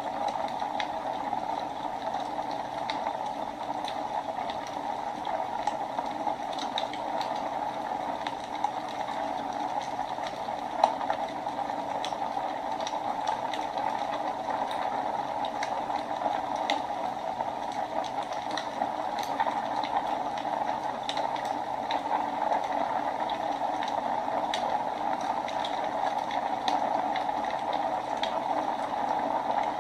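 Wood fire burning in a fireplace: a steady rushing hiss with many small crackles scattered throughout, and one louder pop about eleven seconds in.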